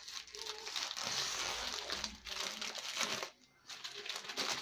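Plastic courier mailer bag crinkling as it is handled and opened, with a brief pause a little after three seconds in.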